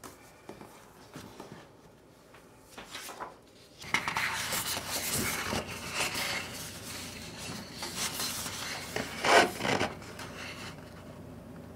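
Sheets of heavy cotton-rag inkjet paper (Hahnemühle Photo Rag Duo, 276 gsm) sliding and rubbing against each other as a sheet is drawn from the pack. A few light rustles come first, then a long stretch of sliding from about four seconds in, and one sharper swish near the end.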